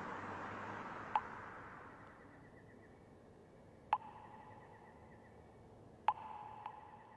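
Three chat-message alert sounds, each a sharp click with a short ringing tone, about two to three seconds apart, over a steady street hiss that fades out in the first few seconds.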